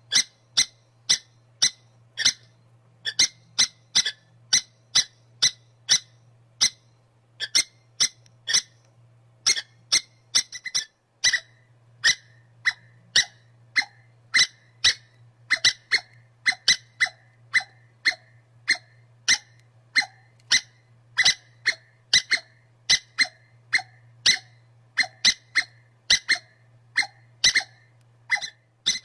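Squirrel chirping in a long, steady run of short, sharp squeaky calls, about two a second, over a faint steady low hum.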